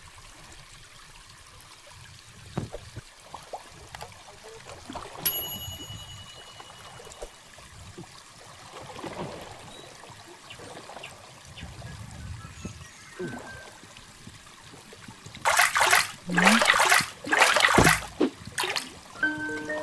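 River water trickling and lapping with small scattered knocks. About three-quarters of the way through comes a few seconds of loud splashing in several bursts around a wire-mesh keep basket holding caught fish.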